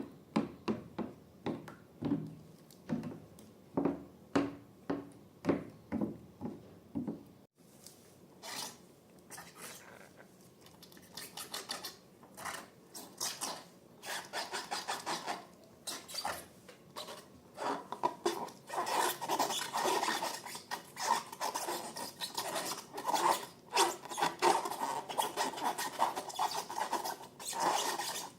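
Slime being worked by hand: a rhythmic squishing about twice a second, then, after a sudden break, dense sticky crackling and clicking that grows louder toward the end.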